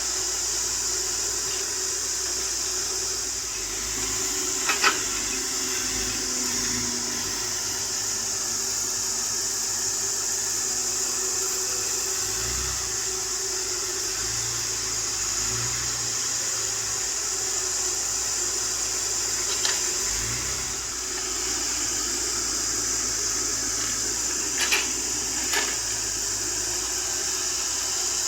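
Caterpillar excavator running steadily, with a constant high hiss over a low engine hum. A few sharp knocks stand out: one about five seconds in, one near twenty seconds, and two close together near the end.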